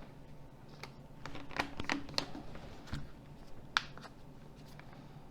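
Small plastic clicks and taps, about half a dozen spaced irregularly, as a Nokia 6310 (2021) mobile phone's parts are handled and pressed back together.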